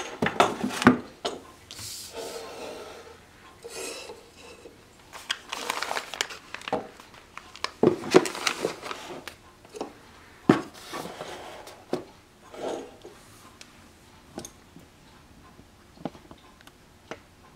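Hands handling an AR-15 lower parts kit and its packaging: irregular rubbing, rustling and small clicks and knocks, busier in the first half and sparser later.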